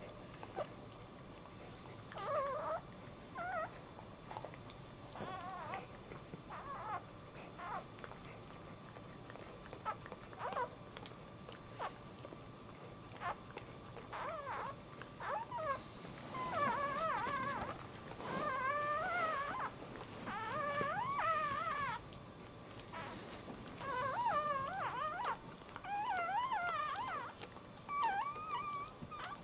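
Newborn dachshund puppy crying with high, wavering squeals while its mother licks it clean. Short scattered squeaks in the first half give way to longer runs of warbling cries about halfway through, with faint wet licking clicks in between.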